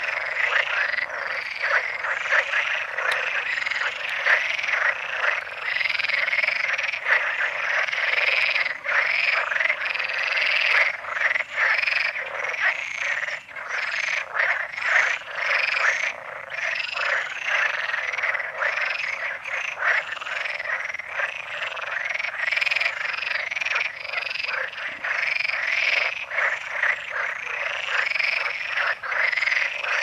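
A chorus of Perez's frogs (Iberian water frogs) calling, many calls overlapping without a break.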